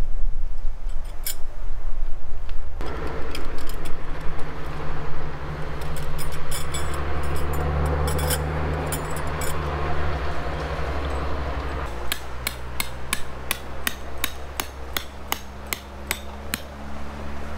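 Steel tent pegs clinking against each other and a metal toolbox, then a hammer driving a steel tent peg into the ground in a steady run of sharp metallic hits, about three a second, from about twelve seconds in until near the end.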